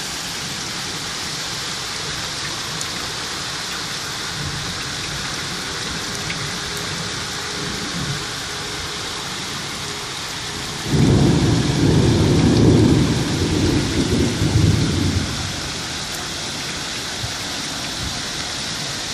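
Heavy rain pouring steadily, with a long, uneven rumble of thunder about eleven seconds in that lasts some four seconds and is the loudest thing heard.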